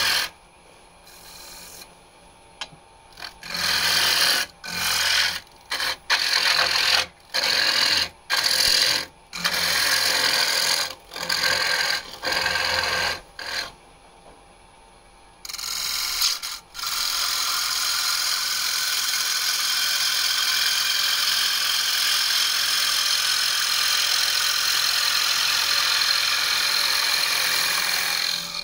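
A turning tool cutting the inside of a wooden bowl spinning on an electric lathe, a rasping scrape. For the first half it comes as many short cuts, each a second or less, with near-quiet gaps between; from about two-thirds of the way in it becomes one steady, unbroken cut.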